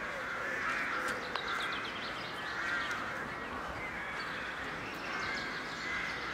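Animal calls repeating roughly once a second, with faster small chirps higher in pitch, over steady outdoor background noise.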